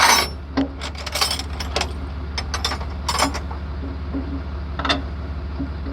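Metal hand tools clinking and tapping against steel parts in a series of irregular sharp clicks, over a steady low hum.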